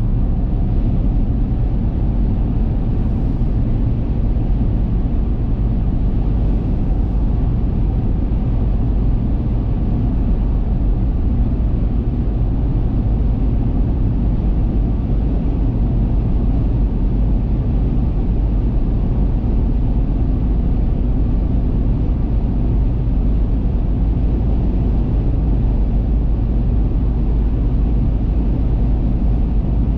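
Steady low rumble of a car cruising at highway speed, heard from inside the cabin: tyre and engine noise with no change throughout.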